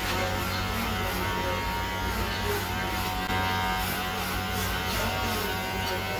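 Electric hair clippers buzzing steadily as they shave hair for a buzz cut, with guitar music playing over them.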